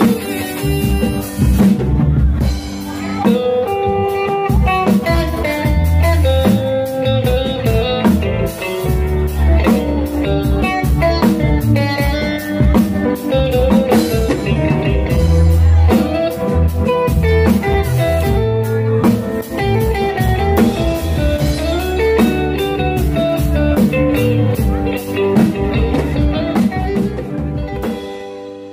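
Live band playing an instrumental: an electric guitar plays a melodic lead over a drum kit and low bass notes, the music tapering off near the end.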